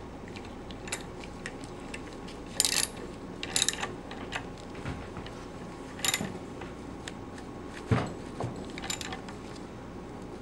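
Metal-on-metal clicks and clinks from a hand tool on the vacuum pump's piston assembly as its nut is tightened down: scattered single clicks, a few quick clusters of clicks, and a heavier knock about eight seconds in.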